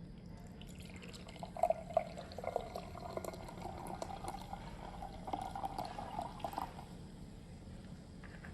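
Liquid being poured or running into a container for about five seconds, with small splashes.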